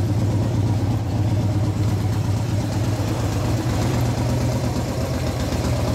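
Honda VFR800 V4 engine idling steadily through an aftermarket WYVERN exhaust, a low even exhaust note with no revving.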